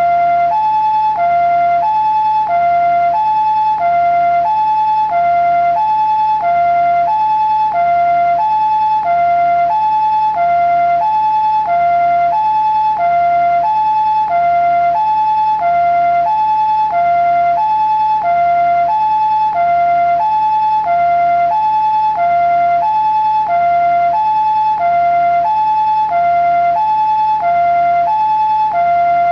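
Japanese ambulance two-tone "pee-po" siren sounding steadily, a high note and a lower note alternating evenly, about three high-low pairs every four seconds, with no change in pitch or loudness.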